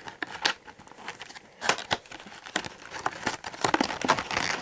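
Packaging for a leather iPod Touch case being forced and torn open, with irregular crinkling and crackling.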